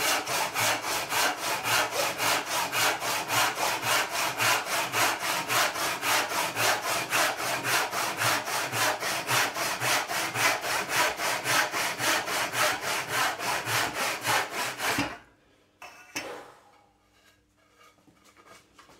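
Small Atkins backsaw, freshly sharpened for crosscutting, sawing across a wooden block in a quick, even rhythm of strokes, several a second. The sawing stops about 15 seconds in, followed by a couple of light knocks.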